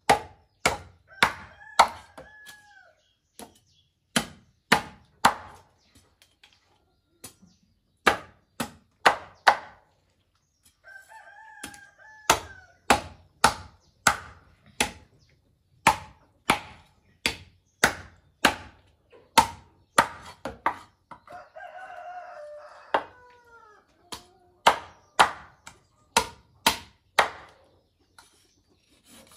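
Knife chopping fish on a cutting board: sharp strikes about two a second, in runs with short pauses. A rooster crows three times in the background.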